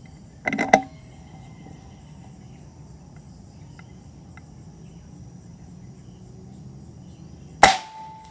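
Air rifle firing pellets at a 100-yard target: a single sharp crack about three-quarters of a second in, with a brief sound just before it, and another sharp crack near the end followed by a short ring. A steady high chirring of insects runs underneath.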